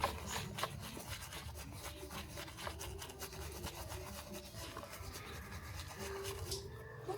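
Rapid, repeated rubbing strokes against a small toy-car part, several strokes a second, as in hand scrubbing or sanding during restoration.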